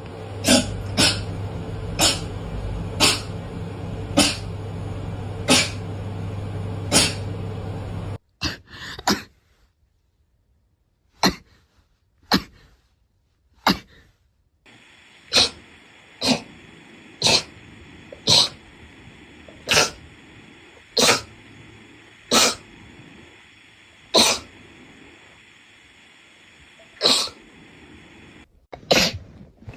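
A run of short, sharp sneezes, about one a second, across several separate recordings. A steady hum sits behind the first eight seconds, a few sneezes follow with almost no background, and the rest have a steady hiss behind them.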